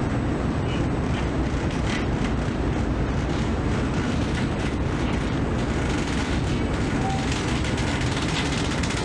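Steady low rumble of the MV Caledonian Isles' engines and propellers, heard from the open deck during berthing, with an even rushing noise over it.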